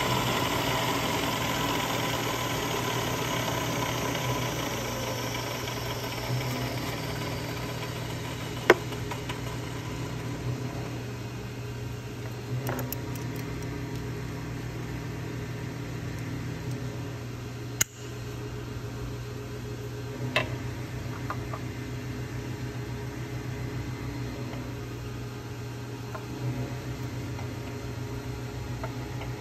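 Vertical milling machine running with a steady low hum, a whine falling in pitch over the first few seconds, and a few sharp metallic clicks, the loudest about 9 and 18 seconds in.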